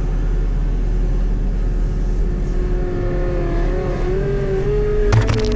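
Skid loader engine running under load, heard from inside the cab, its pitch climbing from about halfway through. A few sharp cracks near the end.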